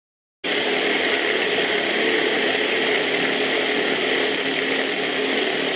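Small electric food chopper running, its blades grinding chunks of raw chicken breast with garlic and ginger into a paste. A steady motor whir starts suddenly about half a second in and holds even.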